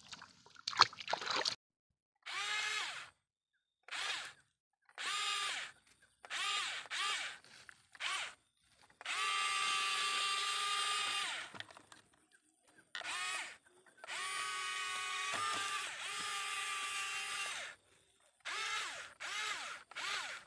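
Electric gear motors of a remote-controlled toy excavator whining in repeated short bursts as it is driven and worked, with two longer runs of a few seconds in the middle.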